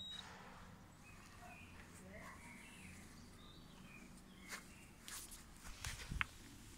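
Faint outdoor background with a few faint chirps, then several light clicks and knocks about four and a half to six seconds in.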